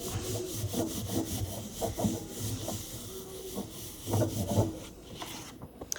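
Paper rubbing and rustling in a run of short strokes as cut-out paper birds are handled and pressed down onto a glued background sheet.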